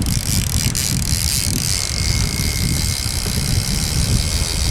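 Wind buffeting the microphone on a sailboat at sea: a loud, steady rush with a deep, gusting rumble.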